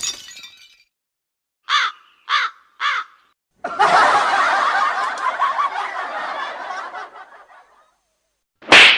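Three short crow caws in a row, then a stretch of crowd laughter lasting about four seconds that fades away. A short, sharp sound comes just before the end.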